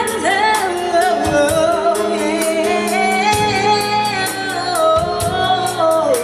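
Live gospel-soul singing with a band: one singer holds a long, wavering high note that drops at the end, over drums and cymbals.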